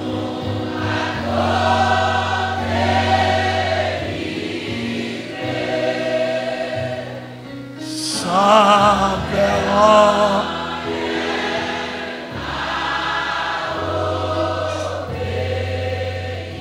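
A church congregation singing a hymn together in phrases. Around the middle, one louder voice with a wavering vibrato stands out above the others.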